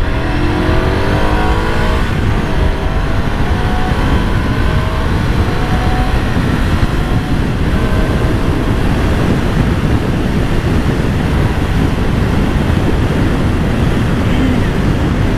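Ducati Scrambler 400cc L-twin engine accelerating hard, its pitch rising over the first few seconds. It then runs on at speed under heavy wind rush on the microphone.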